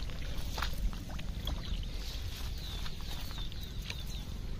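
Low wind rumble on the microphone, with a small bird chirping a quick run of short falling notes through the middle and a few light clicks.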